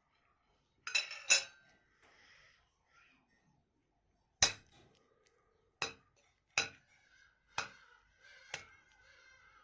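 Cutlery clinking against a plate while eating: two sharp clinks close together about a second in, then single clinks roughly once a second from about halfway.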